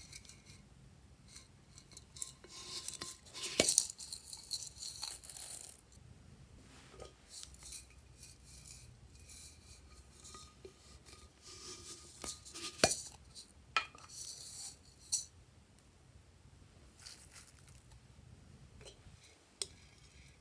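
A plastic cylindrical container handled and turned in the hands: scattered sharp clicks and knocks of plastic with short bursts of rustling, loudest a few seconds in and again about two-thirds of the way through.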